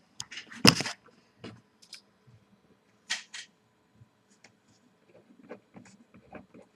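Small handling sounds on a tabletop: a few clicks and knocks, the loudest under a second in, two short scratchy strokes about three seconds in, then a run of light ticks.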